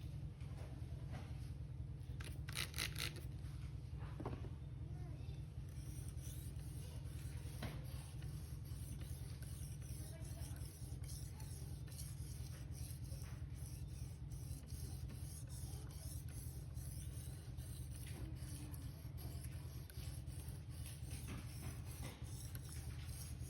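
Victorinox knife blade scraped in repeated strokes against a sharpener, a gritty rubbing hiss, over a steady low hum.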